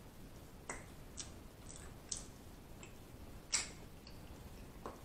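Close-miked chewing of a butter-dipped hard-boiled egg: a scattering of soft, wet mouth clicks and smacks, the loudest a little past the middle.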